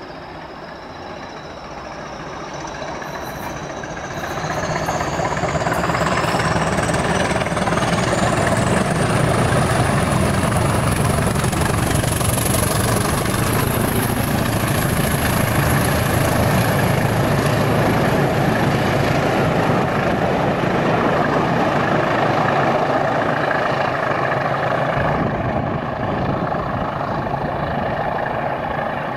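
A pair of British Rail Class 20 diesel locomotives, each with an English Electric 8SVT V8 engine, passing close by under power. The sound builds over the first few seconds as they approach, with a high whistle climbing in pitch, then holds loud as they go by and eases slightly near the end.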